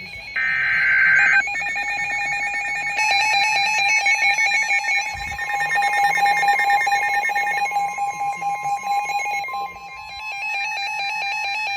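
NOAA weather radios sounding an Emergency Alert System Severe Thunderstorm Warning. The last burst of the warbling SAME data header ends about a second in. Then the radios' alert alarms sound together: steady high tones with rapid beeping layered over them. Part of the beeping drops out near the end.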